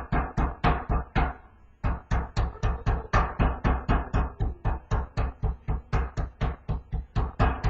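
A chicken breast under plastic wrap being pounded flat with a meat pounder: rapid, steady thuds about four a second, with a short pause a little over a second in.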